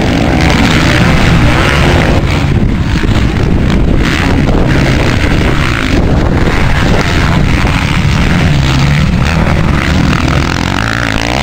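Motocross dirt bike engines running hard on the track, loud and continuous, with wind buffeting the microphone.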